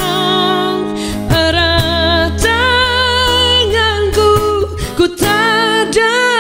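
A woman singing a slow worship song and strumming an acoustic guitar, holding long notes with vibrato.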